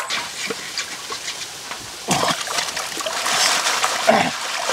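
Shallow river water splashing and trickling as a man wades and moves a woven basket through it. Two short vocal sounds that fall in pitch come from him, about two seconds in and again near the end.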